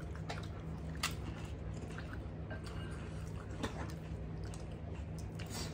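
Eating gol gappa (pani puri): soft chewing and a few short, sharp crackles as crisp puri shells are poked open by hand, over a steady low hum.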